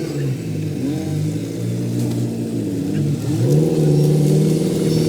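Off-road 4x4 engine revving under load, its pitch dipping and rising, and getting louder about three and a half seconds in.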